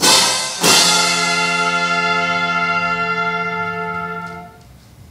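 Fanfare trumpets ending a fanfare: two quick accented notes, then a long held chord that dies away near the end.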